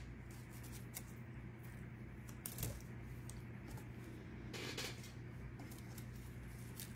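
Faint scattered clicks and a brief soft rustle as craft tools and paper pieces are handled, over a low steady hum.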